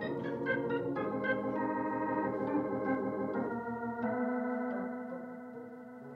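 Organ music: a short bridge of quick-changing notes over sustained chords, settling about four seconds in on one held chord that fades away.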